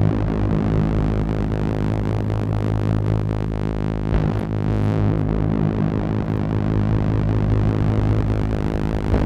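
Live-coded electronic music: a steady low synthesizer drone with a dense, flickering texture over it.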